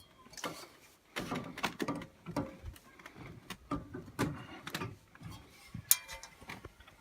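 Someone climbing a ladder: a run of irregular knocks and clanks as feet and hands take the rungs, with a sharp click near the end.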